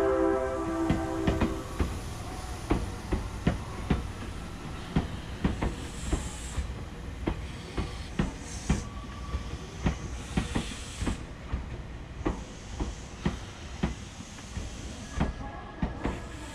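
Nankai Rapi:t train rolling slowly, its wheels clacking over rail joints and points about once or twice a second, with short spells of air hiss from about six seconds in. A held pitched tone sounds at the start and stops under two seconds in.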